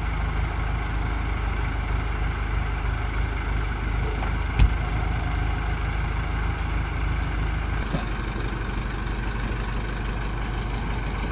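A vehicle engine idling steadily, with one sharp knock about four and a half seconds in.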